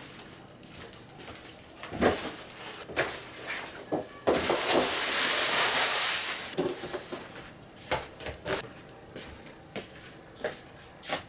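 Household items being handled while tidying a room: rustling of clothes and bags with scattered knocks and thumps, and a longer spell of louder rustling in the middle.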